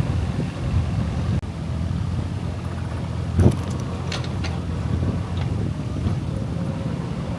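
An engine running steadily with a low rumble, with a single sharp knock about three and a half seconds in and a few faint clicks after it.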